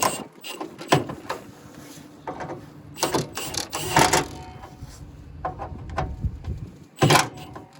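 Metal clicks, clanks and knocks of a replacement hood latch and its hardware being fitted by hand, scattered through, with the loudest knock about a second before the end.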